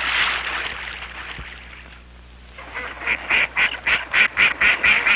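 A rushing hiss fades away over the first two seconds. Then, from about three seconds in, waterfowl call in a quick run of quacks and honks, several a second.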